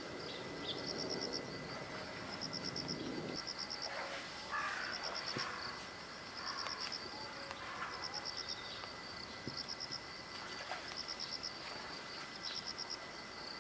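Insects chirping in short, even, high-pitched pulsed trills repeated about every second and a half, over steady outdoor hiss; a low background rumble drops away about three seconds in.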